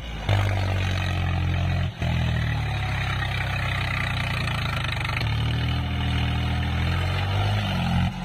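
Farm tractor's diesel engine running steadily during a rear-wheel wheelie, its tone unchanged throughout. The sound breaks off abruptly and resumes about two seconds in, and shifts again about five seconds in.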